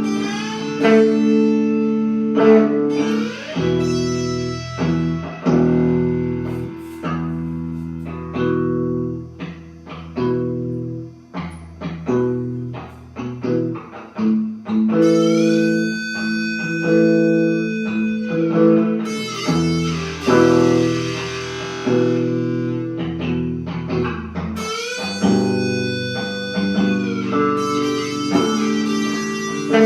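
Blues music played on guitar over a bass line, with some notes sliding in pitch.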